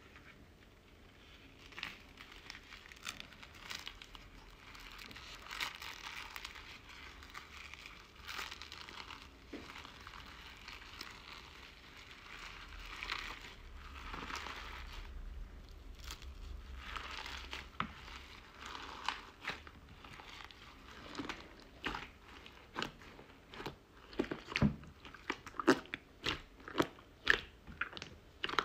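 Hands kneading and squeezing slime mixed with small foam beads, giving a crunchy, crackling sound in bursts. Toward the end the slime is pressed down, and sharp clicks and pops come quickly and louder, several a second.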